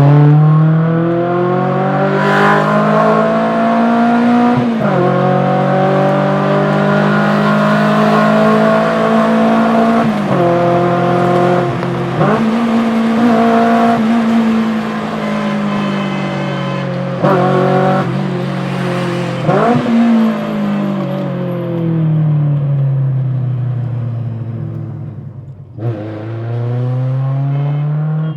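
Engine of a modified 280 hp Maruti Baleno being driven hard: the pitch rises and holds at high revs, with several brief, sharp dips and recoveries like gear changes. Near the end the revs fall away slowly over several seconds, then climb again.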